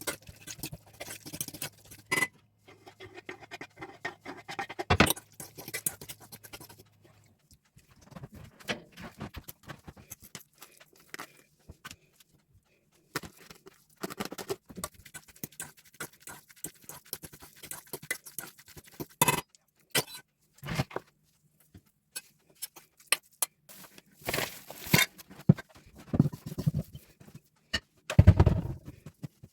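Kitchen work sounds: irregular scraping and light tapping of utensils and food handling, with a few sharper knocks about five seconds in, near the middle and near the end.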